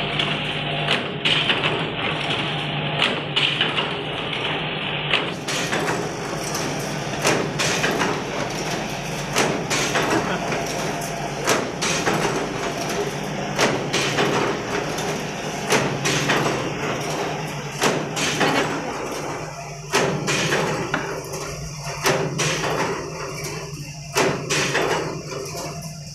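Automatic wire bucket-handle making machine running: a regular rhythm of sharp metal clanks from its cam-driven forming and cutting stations, over a steady low hum from the motors and vibratory bowl feeder.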